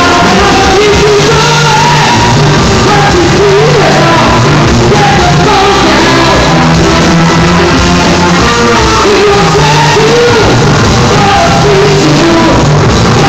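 Live rock band playing a funk-rock song, with a lead singer belting over bass, guitar and drums; the recording is loud and near full level.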